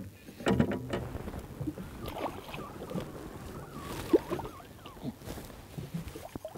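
Water splashing and lapping against the side of a small aluminium boat as a large lake trout is pulled up to the surface alongside, in short irregular splashes.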